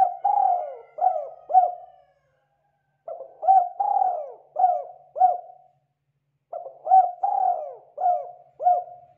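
Spotted dove cooing: three phrases of several low, repeated coos, with short pauses of about a second between them.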